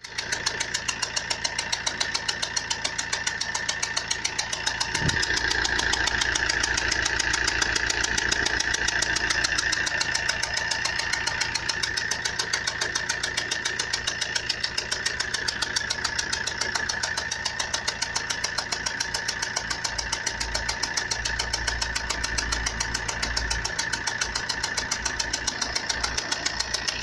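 Fiat Punto 1.3 Multijet four-cylinder turbodiesel engine running with a loud, rapid, evenly repeating knock/rattle, a little louder for a few seconds after about five seconds in. It is the sign of a fault that came on suddenly at high motorway speed.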